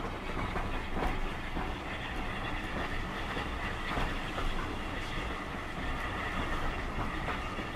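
Train running along the track: a steady rolling rumble with occasional faint clicks of wheels over rail joints.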